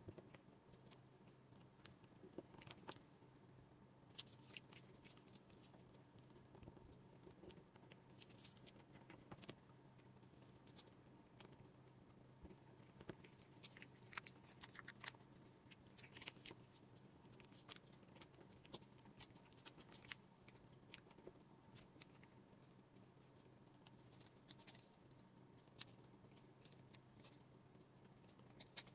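Faint rustling and crinkling of origami paper being folded and creased by hand, with scattered small crackles, over a steady low hum.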